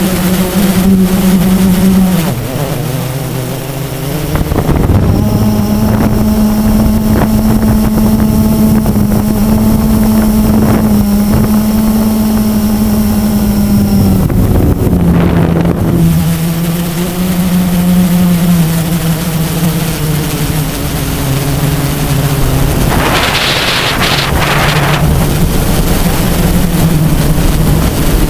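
Blade 350 QX quadcopter's brushless motors and propellers buzzing in flight, the pitch dropping and rising several times. Heard from the GoPro on board, with a brief rush of wind noise about two thirds through.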